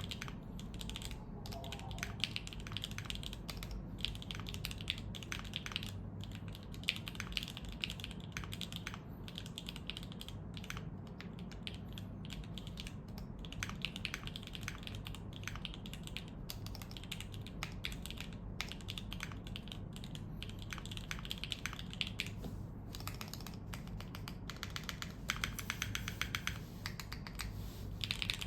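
Steady typing on a custom mechanical keyboard: a Hoshizora board with Gateron Slay Type A switches on a POM plate, O-ring mounted and force-break modded, with ABS keycaps and no dampening. Keystrokes come in quick irregular clicks, getting a little faster and louder near the end.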